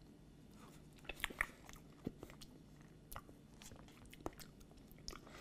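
A person eating ice cream off a metal spoon: faint mouth sounds with a few soft clicks.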